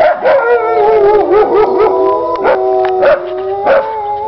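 A pack of wolves howling in chorus, several voices holding long notes at different pitches that slide up and down, with short sharp yelps cutting in several times.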